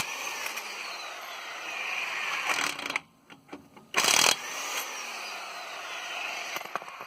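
Impact wrench hammering in a short burst about four seconds in, each burst followed by a thin whine that falls slowly in pitch over a couple of seconds as the lug nuts of a car wheel are loosened.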